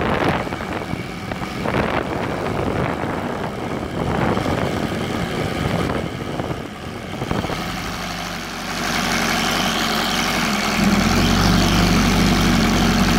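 OS Sirius 7 seven-cylinder radial model engine, run on glow fuel with CDI ignition and turning a 24x10 propeller, running on a test stand. For the first several seconds it is a rough, uneven rushing noise. From about eight seconds in it settles into a steady, even low hum at idle, which gets louder from about eleven seconds.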